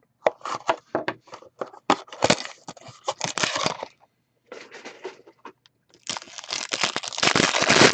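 Packaging of a hockey card box being torn and crinkled open: two spells of loud crackling, the second starting about six seconds in.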